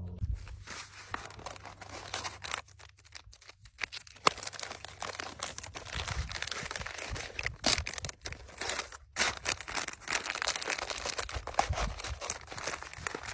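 MRE packaging crinkling and rustling in the hands as the entrée pouch is worked out of its green flameless-heater sleeve. The crackling is dense and irregular, with a short break about nine seconds in.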